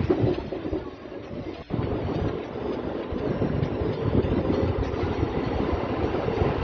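Passenger train running, heard from its open doorway: a steady rumble of wheels on the rails, getting louder about two seconds in.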